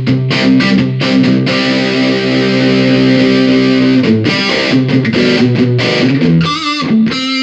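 Electric guitar played through a Fender Ultimate Chorus 2x12 combo amplifier: strummed chords, one held for a couple of seconds, then wavering single notes near the end.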